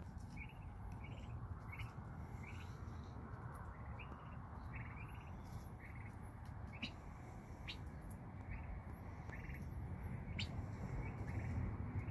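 Young turkeys (poults) peeping: short, high calls repeated every half second or so, over a low steady rumble.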